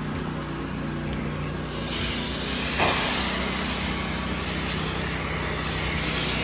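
Engine-driven soft-wash pump running steadily while a wand sprays a soap and sodium hypochlorite mix, the spray hiss growing louder about two seconds in.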